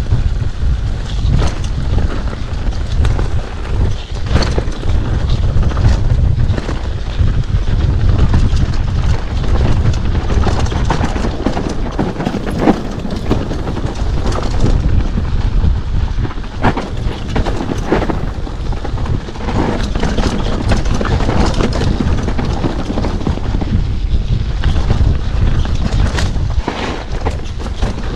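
Wind buffeting the microphone of a camera on a mountain bike riding down a dirt singletrack, a steady low rumble, with irregular clattering knocks from the bike rattling over roots and rocks.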